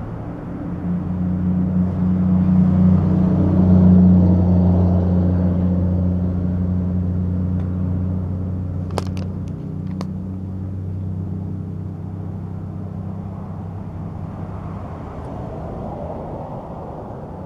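A motor vehicle's engine drone, low and steady, swelling to its loudest about four seconds in and then slowly fading. A few sharp clicks come close together around the middle.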